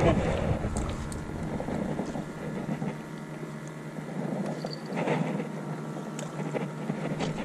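Steady background noise on a small fishing boat: a faint even hum under a noisy haze, with a few light clicks and knocks.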